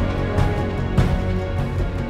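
Background music: sustained chords with two percussive hits, about half a second and a second in.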